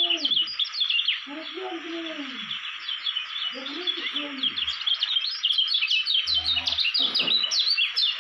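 Caged yellow white-eye (kecial kuning) singing a fast twittering song of quick high chirps, in several runs one after another. Under it runs a steady hiss, and a few lower falling calls come in now and then.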